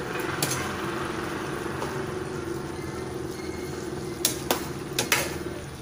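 Chicken curry simmering and bubbling in a pan while a metal ladle stirs it, the ladle clinking against the pan once near the start and several times about four seconds in.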